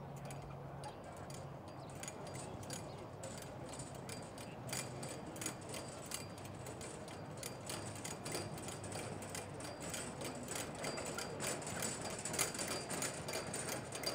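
Wheeled chalk line-marking cart being pushed over a grass pitch, its wheels and dispensing mechanism rattling with a fast, irregular clicking that grows a little louder near the end.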